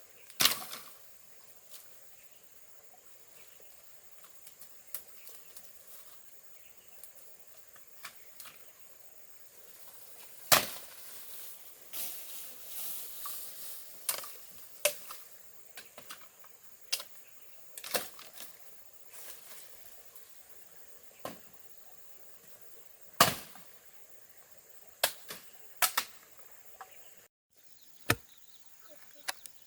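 Irregular sharp chopping strikes on wood, three of them loud and many lighter ticks between, with a stretch of rustling around the middle. A steady insect drone runs underneath.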